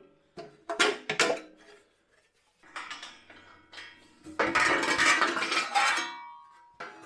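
Sheet-metal clanks and rattling as the lower wheel cover of an old Atlas bandsaw is handled and swung open. A few sharp knocks come first, and the loudest rattle, about two-thirds of the way through, ends in a short metallic ring.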